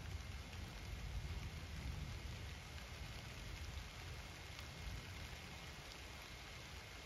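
Soft, gentle rain falling steadily on garden foliage, faint and even, with a low rumble underneath that eases off after about three seconds.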